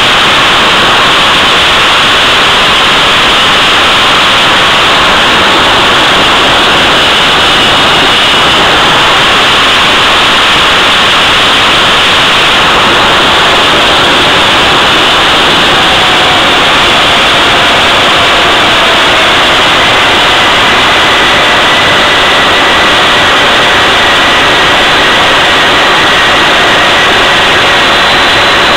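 Jet engine running at high power: a loud, steady rush with faint whine tones drifting slowly in pitch.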